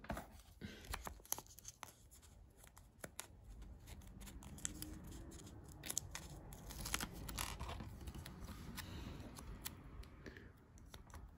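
Fingers peeling a LEGO sticker off its backing sheet and pressing it onto a plastic brick: faint rustling and scratching with many small clicks.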